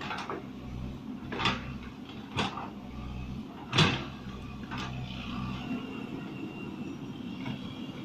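Hydraulic excavator's diesel engine running steadily, with four sharp knocks from the machine's working parts, the loudest about four seconds in.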